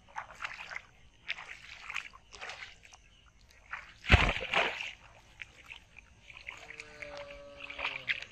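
Shallow paddy water splashing and sloshing as someone wades and handles a metal pot in it, with a loud splash about four seconds in as the pot is plunged into the water. A faint drawn-out call comes near the end.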